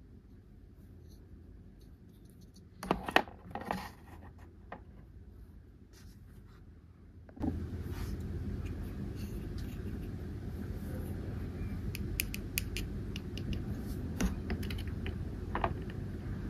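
Small plastic dollhouse furniture being handled and set down. A cluster of light clicks and knocks comes about three seconds in. Scattered faint taps follow over a steady low background hiss, which starts abruptly about halfway through.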